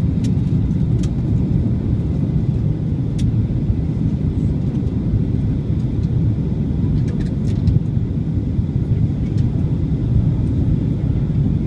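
Steady low rumble inside the cabin of a Boeing 737-800 descending to land: its CFM56 jet engines and the air rushing past the fuselage. A few faint clicks sound over it.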